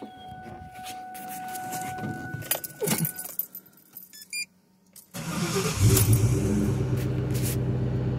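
Keys jangling at the ignition, then the twin-turbo 4.6-litre V8 of a 2003 Ford Mustang cranks and starts about five seconds in. It flares briefly on catching, then settles into a steady idle through a cross pipe and Magnaflow mufflers.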